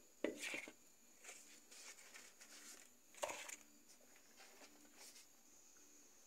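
Near silence broken by a few faint, brief rustles, the loudest about three seconds in: corn-husk-wrapped tamales being lifted from the pot and handled.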